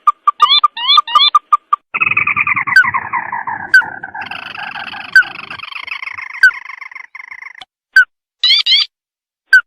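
Lure recording of a tikusan (crake) calling: a quick run of sharp ticking notes, then from about two seconds in a long descending trill lasting some five seconds. Single sharp notes punctuate the trill about every second and a half. Short bursts of rising chirps come near the end.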